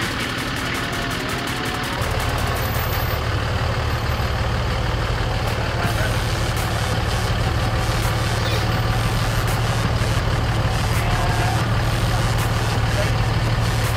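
Dodge Ram 2500 pickup's engine running at low revs as the heavy truck crawls over boulders, a steady low rumble that grows louder about two seconds in.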